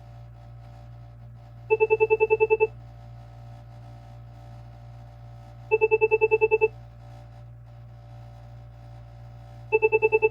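Cisco "Chirp 2" telephone ringtone ringing: a one-second run of about eleven rapid chirps that repeats every four seconds, three times, with the third starting near the end.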